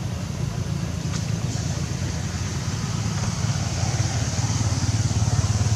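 A motor vehicle engine running steadily, a low hum that grows louder in the second half, with a steady high hiss over it.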